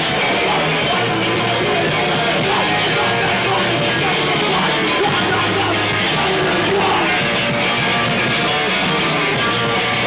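Hardcore punk band playing a song live: loud electric guitar and a dense, unbroken wall of band sound.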